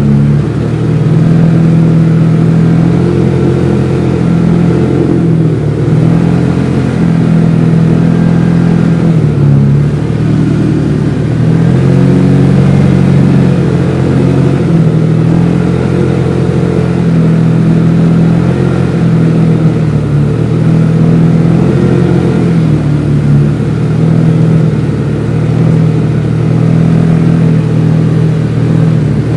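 A side-by-side UTV's engine running under way on a gravel trail, heard from inside the cab. The engine note rises and falls every few seconds as the throttle changes.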